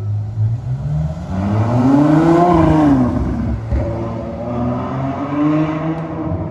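Ferrari 812 Superfast's 6.5-litre V12 accelerating hard as the car drives past and away. The engine note climbs to its loudest about two and a half seconds in, drops, then climbs again in a second surge and fades as the car pulls away.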